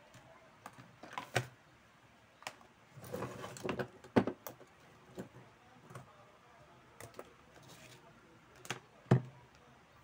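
Handling of a plastic rotary fan speed-control switch box on a workbench: scattered clicks and knocks, with a burst of rustling about three to four seconds in and sharp knocks just after four seconds and near nine seconds.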